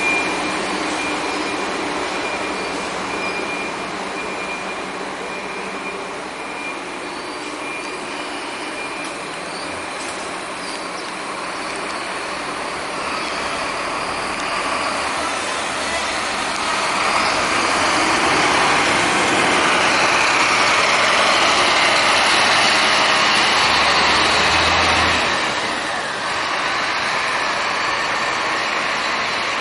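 Scania K340iB coach's diesel engine pulling away and accelerating. The engine and running noise grow louder a little past halfway, then fall off shortly before the end as the coach drives away.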